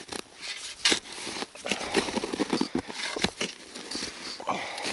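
Shovel digging into snow-covered soil: a run of irregular crunching chops and scrapes.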